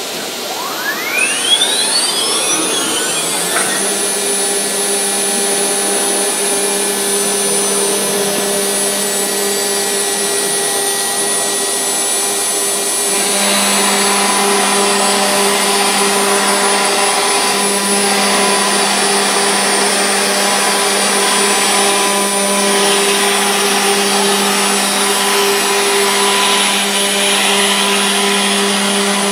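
CNC router's HSD spindle spinning up, a rising whine over the first few seconds, then running at a steady pitched whine as a V-bit cuts grooves into a board. The cutting noise grows louder a little under halfway through.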